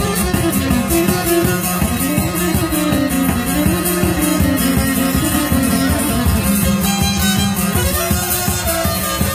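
Instrumental break in a piece of izvorna music, traditional Balkan rural folk: a fiddle plays a winding melody over a fast, steady plucked-string accompaniment.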